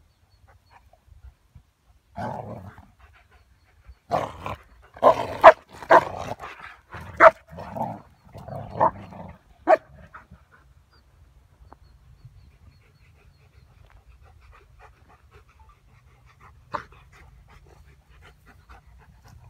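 Two dogs at play, a Black Russian Terrier with a husky-type dog, barking: one short bark about two seconds in, then a quick run of barks from about four to ten seconds in. After that it goes quiet apart from a single sharp click near the end.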